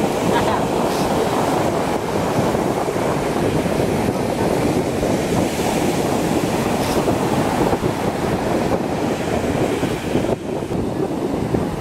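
Ocean surf breaking and washing on the beach, a steady rushing, with wind buffeting the microphone.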